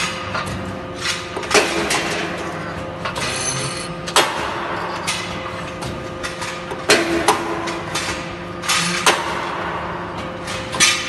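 CNC hydraulic angle-steel punching and cutting machine at work: sharp metallic bangs at irregular intervals of a second or two, each ringing briefly, over the steady hum of the machine.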